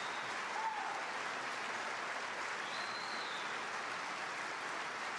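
Large convention audience giving a standing ovation: steady applause.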